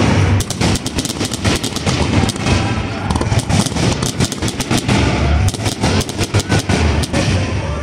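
Aerial firework shells bursting in a rapid, unbroken barrage of overlapping bangs and booms: the closing finale of the fireworks show.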